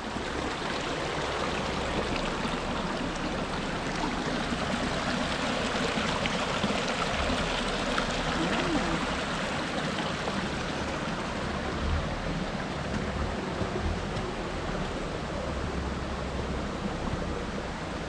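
Small forest stream running steadily.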